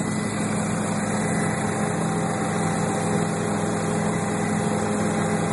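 Helicopter in flight heard from inside the cabin: a steady drone of engine and rotors with a constant low hum.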